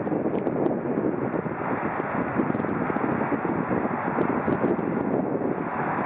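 Boeing 737-700's CFM56-7B jet engines on final approach at low landing power, a steady rushing roar with no clear tones.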